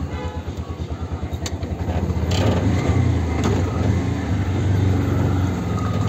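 Auto-rickshaw engine chugging in even pulses at idle, then running louder as the rickshaw pulls away about two seconds in.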